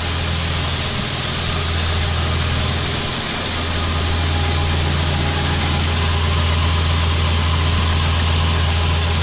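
Steady low machinery hum with a rushing hiss over it; the hum dips briefly about three seconds in and then carries on.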